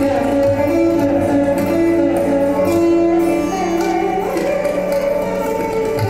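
Indian classical instrumental music: a plucked Mohan veena playing a melody with held notes and pitch slides over a steady drone.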